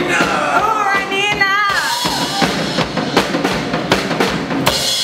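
A voice sings into a microphone, then about two seconds in a drum kit comes in with a fast, steady punk beat of bass drum and snare hits.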